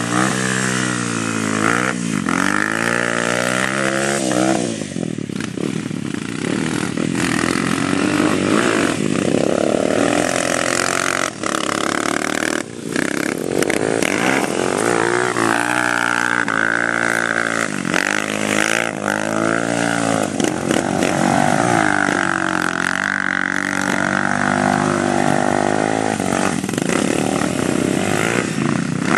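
ATV engine revving hard, its pitch rising and falling over and over as the throttle is worked through drifts.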